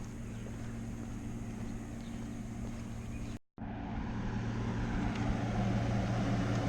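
Motor vehicle traffic: a steady engine hum, with the sound of a car growing louder over the last few seconds as it approaches. A brief cut to silence about halfway.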